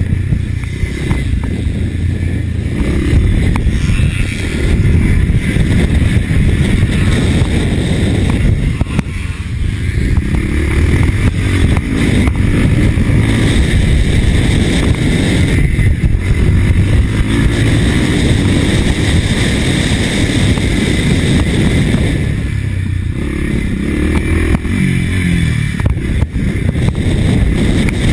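Motocross motorcycle engine at high revs, repeatedly backing off and revving up again, with the pitch rising near the end.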